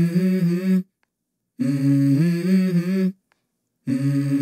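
Hummed vocal melody of a background music track: three phrases of about a second each, held on steady notes that step up and down, with dead silence between them.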